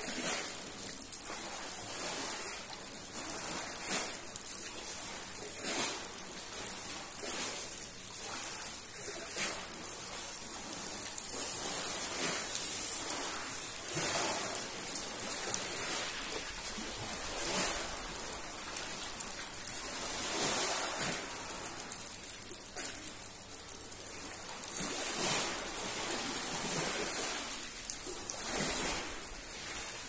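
Steady hiss of rain together with small sea waves washing onto a pebble beach, swelling every two to three seconds.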